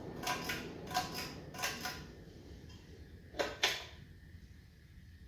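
1995 Hunter Original ceiling fan running on high with a steady low hum. The owner says it makes a very slight noise, which he puts down to a worn shaft. A few soft knocks come in the first two seconds and two sharp clicks about three and a half seconds in.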